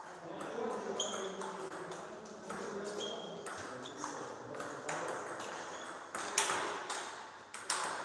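Table tennis rally: the celluloid-type ball clicking sharply off the paddles and the table, a few hits each second at an uneven pace.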